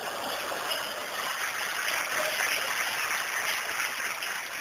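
Audience applauding, building up right at the start, holding steady, then thinning out near the end.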